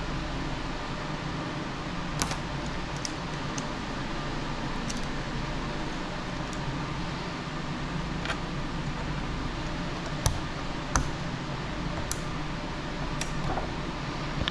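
Small sharp clicks and taps of computer hardware being handled as an Intel i7-7700 processor is fitted into a motherboard's CPU socket, the two sharpest about ten and eleven seconds in, over a steady background hum.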